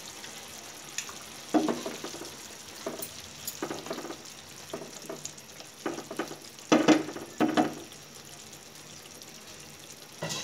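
Hilsa curry in mustard gravy simmering in a pan with a steady sizzle, while a spatula stirs and knocks against the pan in several short scrapes and taps, the loudest about seven seconds in.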